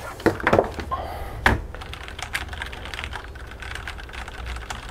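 Keys of a WASD mechanical keyboard with Cherry MX Brown switches being pressed: a few louder knocks in the first second and a half, then a fast, dense run of key clacks.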